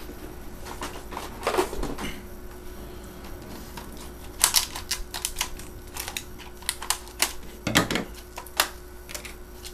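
A stiff plastic clamshell package of RAM sticks being handled: a rustle, then a run of sharp plastic clicks and crackles from about halfway through, with a duller knock near the end.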